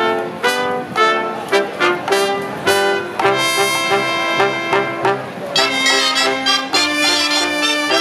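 Cobla playing a sardana: shawm-like tenores and tibles with trumpets, trombone, fiscorns and double bass. It opens with a run of short detached notes and moves into longer held chords about three seconds in.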